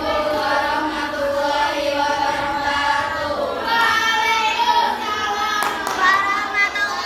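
A group of girls singing together in unison.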